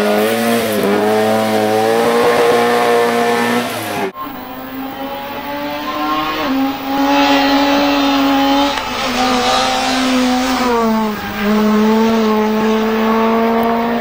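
Rally car engines at full throttle on a tarmac stage: first one car held at high revs through a hairpin, then, after a cut about four seconds in, a second car accelerating hard, its engine note climbing and dropping at each of several gear changes.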